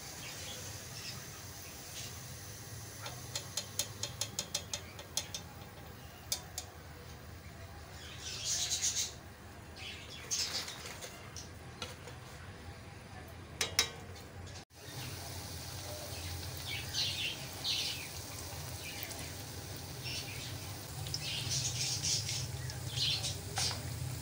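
Hot oil sizzling and crackling as battered pakoras deep-fry: a quick run of small pops early on, then short hissing bursts on and off, over a steady low hum.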